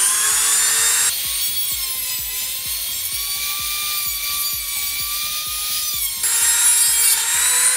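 WEN rotary tool running at high speed, its cutoff wheel cutting through a thin strip of wood: a steady high-pitched motor whine with a grinding rub. The whine eases and changes pitch from about a second in while the wheel bears on the wood, then comes back louder near six seconds in.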